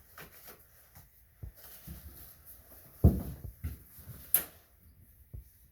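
Handling noises at a shower valve: scattered light knocks, a heavier thump about three seconds in and a sharp click a little after four seconds, as parts and tools are worked by hand.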